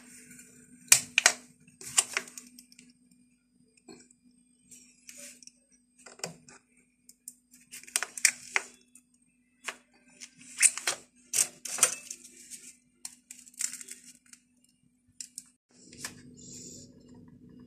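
Metal lever-release ice cream scoop scraping through frozen ice cream and knocking against plastic tubs: sharp, irregular clicks and scrapes in clusters, over a faint steady hum.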